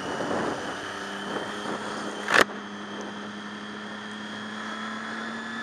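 Motorcycle engine running at steady revs while cruising, with wind and road noise. A short sharp knock or rustle cuts in once about halfway through.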